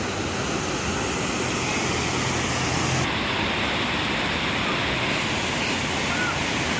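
Steady rushing of white water as the Temperance River pours through a narrow rock gorge in strong currents.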